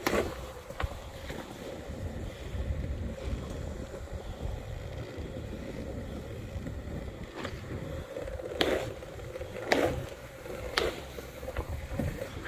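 Skateboard wheels rolling steadily over smooth polished concrete, a continuous low rumble. Near the end come three sharp clacks about a second apart.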